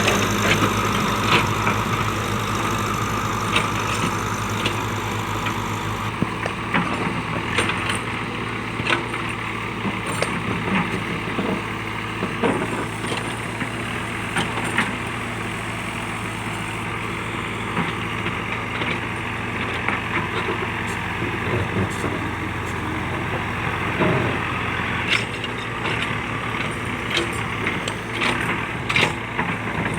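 JCB backhoe loader's diesel engine running steadily, with scattered short knocks and clanks throughout.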